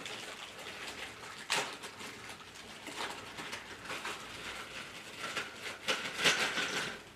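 Handling noises from grow-tent frame parts and connectors: scattered clicks and rustling, with a sharp knock about a second and a half in and a louder flurry of clatter around six seconds in.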